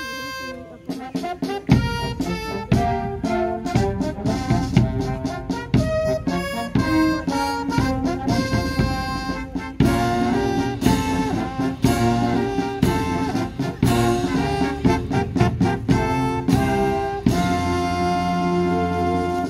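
Military brass band, sousaphones among it, playing live outdoors. The full band with bass and drum beats comes in about two seconds in, and the piece ends on a long held chord near the end.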